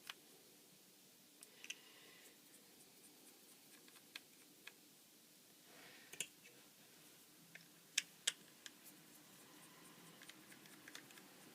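Scattered faint clicks and ticks of a small T5 Torx screwdriver undoing the corner screws of a mobile phone's back housing, with two sharper clicks close together about eight seconds in.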